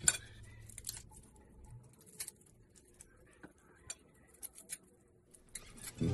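Faint scattered clicks and taps as a paring knife peels and trims a garlic clove over a plate, with a sharper knock at the very start as a lime is handled on the plate.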